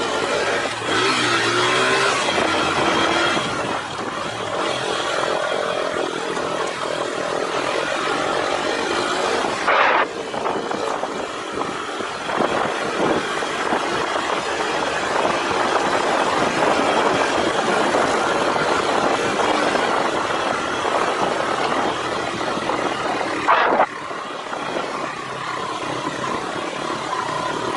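Motorcycle engine running on the move, mixed with heavy wind and road rush on the microphone. There are two short sharp knocks, about ten seconds in and again near the end.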